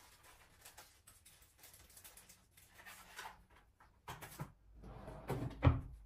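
Quiet indoor handling noises: soft rustles and light knocks, with a louder thump shortly before the end.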